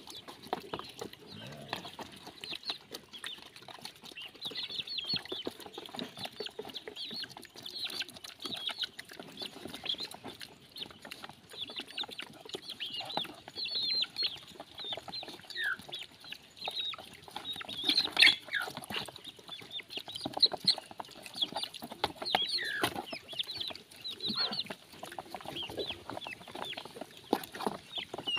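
Young chickens peeping and clucking continually in quick high chirps, with a few louder calls that fall in pitch, the loudest about two-thirds of the way through. Underneath, pigs snuffle and slosh at a shallow muddy water trough.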